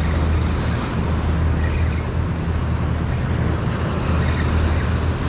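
Ocean surf breaking and washing over jetty rocks, with wind buffeting the microphone in a steady low rumble.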